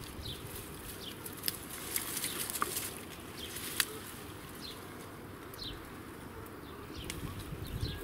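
Pea plants rustling and pods snapping off as they are picked by hand, with a few sharp clicks. Short falling bird chirps come and go in the background.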